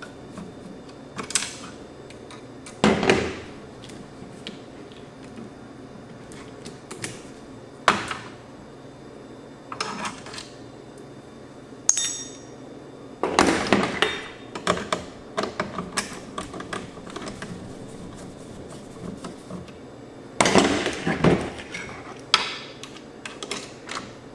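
Irregular clicks, clinks and knocks of tools and small parts being worked loose inside an AV receiver while its headphone jack is removed. The clatter comes in clusters, busiest about halfway through and again near the end.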